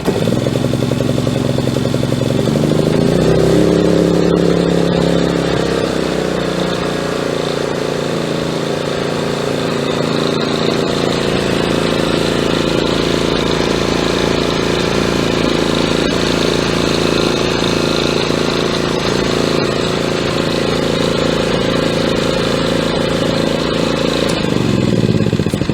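Hyundai HY3200SEi inverter generator running, its engine speed shifting over the first few seconds and then holding steady.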